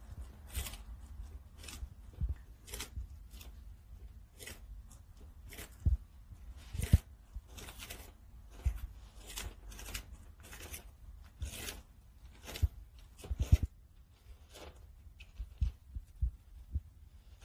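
Pancake tortoises biting and tearing crisp bok choy leaves and stalks, giving irregular wet crunching and snapping bites. There are a few louder knocks among them, the loudest about seven and thirteen and a half seconds in.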